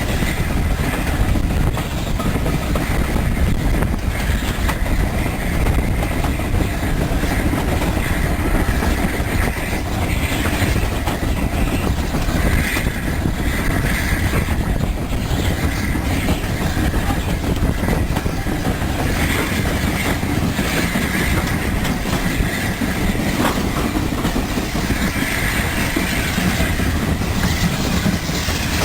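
Train running on rails with a steady low rumble and wheel clatter. A higher squeal comes and goes several times in the second half.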